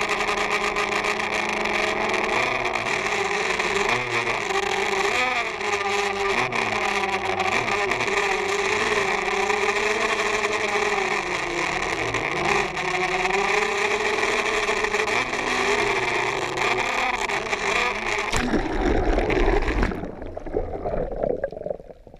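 Quadcopter drone's motors and propellers whirring, their pitch wavering up and down as it manoeuvres. Near the end the whir gives way to a low rushing, and the sound turns dull and muffled as the camera goes under the water.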